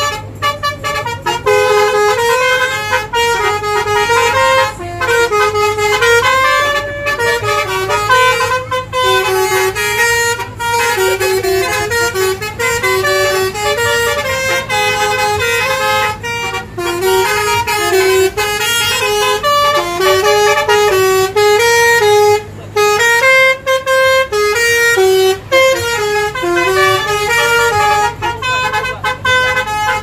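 Indonesian bus 'basuri' telolet horn, a multi-tone air horn, playing a melody in short stepping notes over a bus engine's low hum. It breaks off briefly about two-thirds of the way through.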